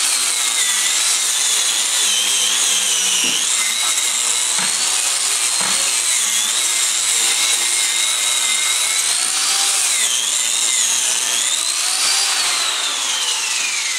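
Small electric angle grinder with a wire brush running against a crankshaft end, scrubbing it clean. Its whine wavers up and down in pitch as it is pressed on and eased off, then starts to fall near the end as the grinder winds down.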